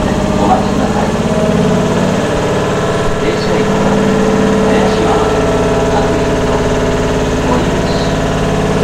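Air compressor under a stopped Keihan electric train car running steadily, a continuous mechanical hum with a rapid, even pulsing.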